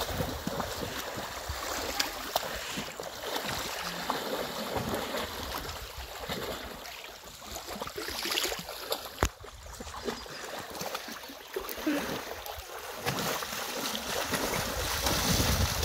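Lake water splashing and sloshing as a horse wades through the shallows and a Welsh Cob mare swims alongside, with uneven splashes throughout. A low rumble grows louder near the end.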